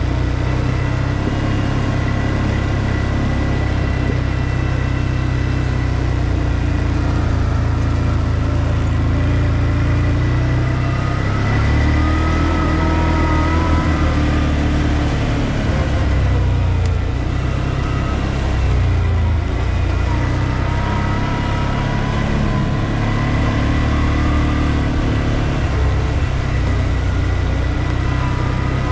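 ODES 650 ATV engine running steadily at low speed, its pitch rising and falling a little with the throttle.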